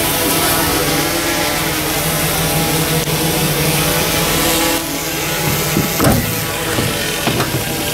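A vehicle engine running steadily, with a sharp click about six seconds in as the truck's cab door handle is pulled.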